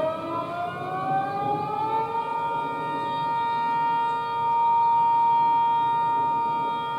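Homemade warning siren winding up, its wail rising in pitch over the first two seconds and then holding one steady tone. The loudness swells and dips slowly once it is up to pitch.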